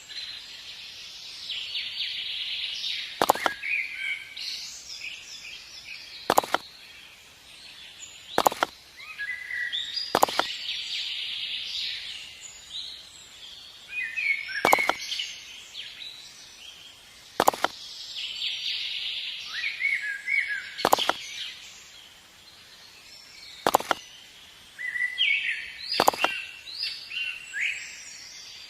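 Sharp knocks, one every two to three seconds, with birds chirping between them.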